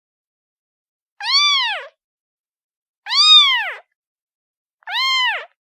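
A kitten meowing three times, each meow high and about two-thirds of a second long, rising then falling in pitch: a kitten calling for attention.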